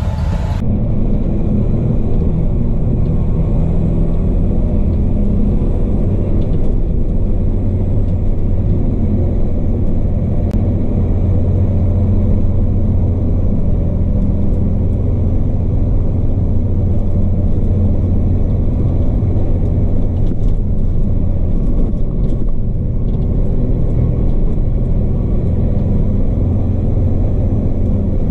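Log truck's diesel engine running steadily under way, heard inside the cab as a loud, even low drone.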